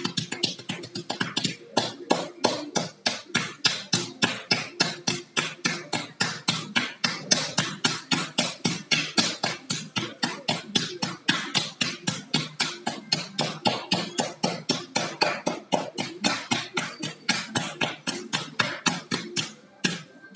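Hands patting and tapping a child's back in quick, steady strokes, about four or five a second: percussion massage for a cough, meant to loosen phlegm.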